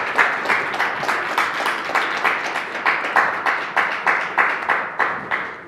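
Audience applauding, a quick patter of many hand claps that dies away near the end.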